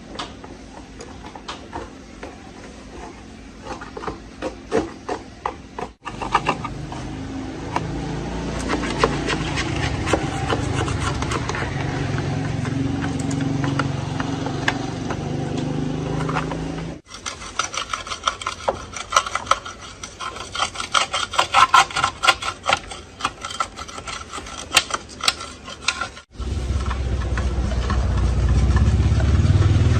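Restoration workshop sounds in several short edited clips: hand tools rubbing, filing and scraping on parts, with a run of rapid clicks, a steady low hum through the middle stretch, and a low rumble near the end.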